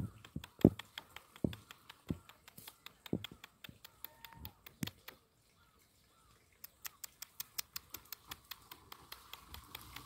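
Crested porcupine rattling its raised quills in an angry threat display: a fast, dry clicking at about five ticks a second, with a few heavier thumps in the first few seconds. The clicking stops for about a second and a half past the middle, then starts again.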